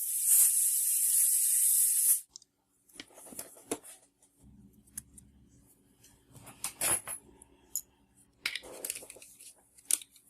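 A blast of compressed air for about two seconds, blowing dust out of a laptop keyboard from under its lifted keys. It is followed by scattered light clicks and scratchy rustles.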